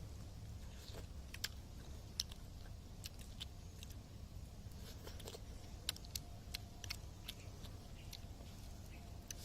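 Faint, irregular sharp clicks and small crackles, about a dozen scattered through, over a low steady hum.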